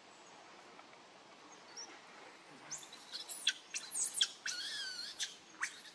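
Baby pig-tailed macaque screaming: a run of shrill, high calls beginning about halfway through, several of them falling sharply in pitch, with one longer wavering call among them.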